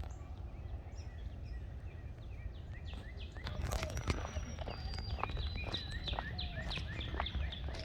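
Birds chirping: many short, quickly repeated calls, getting busier about halfway through, over a steady low background rumble.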